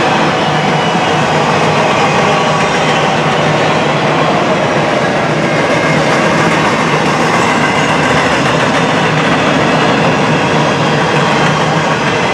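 Empty intermodal freight cars rolling past: a steady rumble of wheels on rail.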